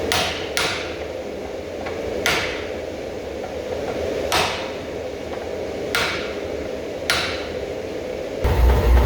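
Blacksmith's hammer striking the axe head on the anvil, six ringing blows one to two seconds apart over a steady hum. Near the end a loud, low, pulsing machine starts up.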